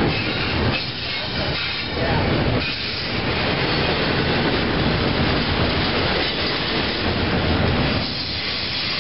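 Double-stack intermodal container train rolling past close by: the steady noise of its wheels on the rails and the cars going by, dipping briefly a few times.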